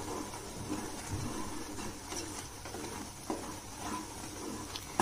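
Wooden spatula stirring simmering daliya (cracked wheat) in a pan, with a low, even cooking noise and a few light scrapes and taps against the pan.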